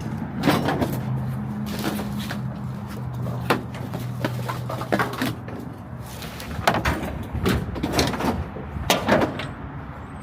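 Irregular clunks, knocks and rattles of parts and jugs being handled and set into a pickup's bed, over a low steady hum that stops about halfway through.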